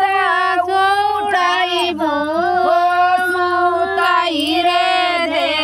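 A high voice singing a Bhojpuri devotional folk song in long held notes that waver and bend in pitch.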